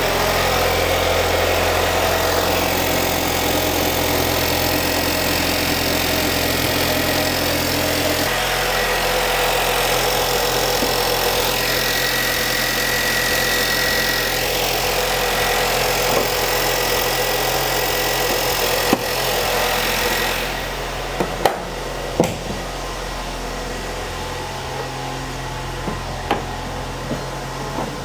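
A 2018 VW Jetta's 1.8-litre turbocharged four-cylinder TSI engine idling steadily on freshly replaced spark plugs. Its low hum changes about eight seconds in. About two-thirds of the way through it grows quieter, and a couple of sharp knocks follow as the hood is shut.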